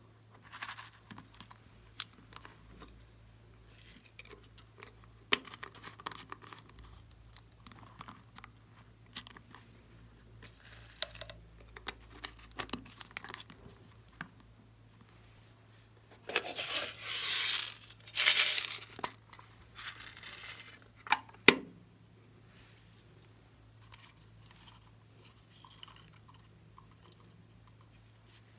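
Hands handling plastic toy bottles: scattered clicks and taps, with two louder stretches of noisy scraping a little past halfway and a sharp click just after them.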